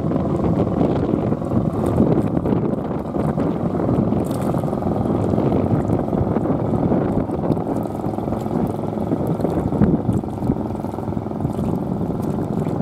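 Steady, loud low rumbling rush of wind buffeting the microphone, with no distinct events.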